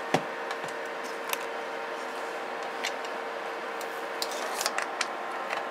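A few small clicks and handling noises as a BNC-to-banana-plug adapter is pushed into a multimeter's banana jacks, with a cluster of clicks near the end, over a steady background hum.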